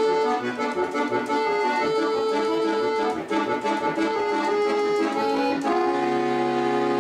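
Instrumental music: a melody over held chords, settling on one long held chord for the last second or so.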